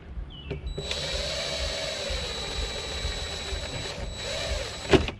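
Power drill with a 1/8-inch bit drilling out a pop rivet, running steadily with a whine for about three seconds, then a short second run. A sharp click comes near the end.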